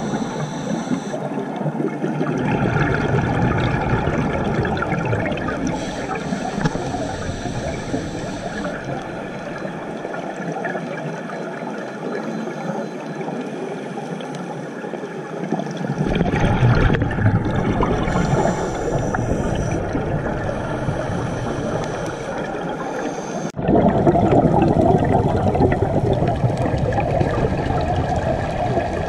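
Muffled underwater noise recorded by a camera in its housing on a scuba dive: a steady watery rush with divers' exhaled regulator bubbles. The sound changes abruptly about 16 and 24 seconds in.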